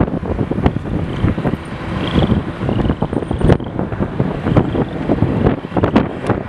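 Strong gusty wind blowing across the microphone: a loud, uneven low rumble broken by many sharp pops as gusts hit.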